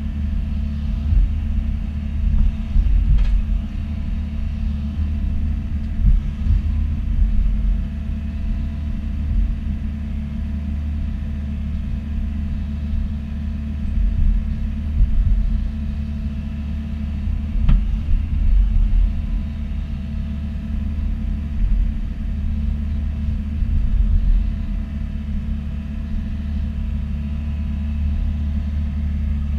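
Bobcat E42 mini excavator's diesel engine running steadily under working load, a deep continuous rumble with a thin steady whine above it. Two brief sharp knocks stand out, about three seconds in and just past the middle.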